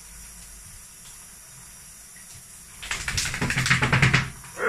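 Wet whippet shaking itself off in the bathtub: a burst of rapid flapping and spraying for about a second and a half near the end.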